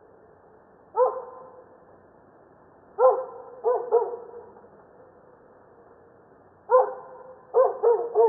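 A dog barking in short runs: a single bark about a second in, three quick barks around the third and fourth seconds, and three or four more near the end, each bark trailing off in a short echo.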